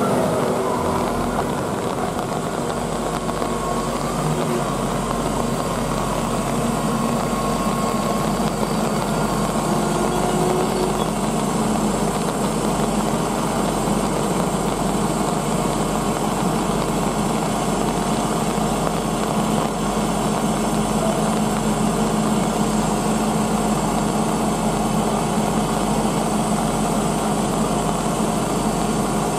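An engine idling steadily, a low even hum that doesn't change.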